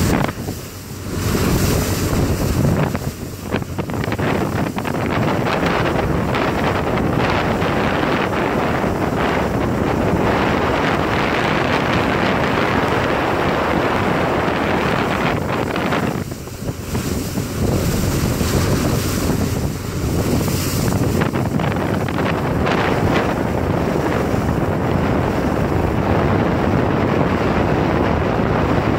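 Wind buffeting the microphone aboard a motorboat under way, over the boat's engine and rushing water.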